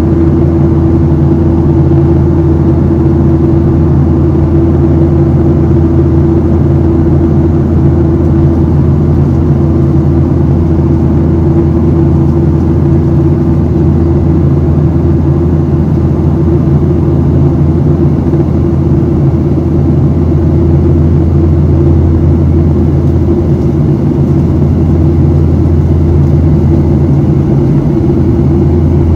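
Steady cabin noise of a Boeing 737-700 in its climb, heard inside the cabin: the CFM56-7B engines and the airflow make an unbroken drone with a steady hum running through it.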